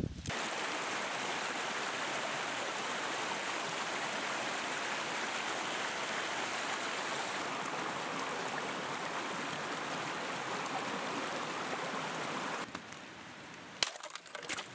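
Steady rushing of a rocky mountain stream. It cuts off near the end, and a boot breaks through thin ice on a frozen puddle with a few sharp cracks.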